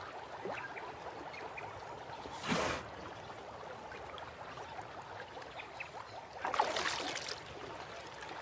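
River water splashing: a short splash about two and a half seconds in and a longer rush of splashing near the end, over a faint steady trickle.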